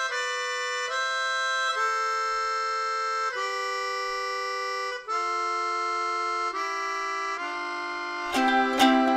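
A free-reed instrument, accordion-like, playing a slow series of held chords that change every second or two. Near the end, strummed strings come in with quick, even strokes.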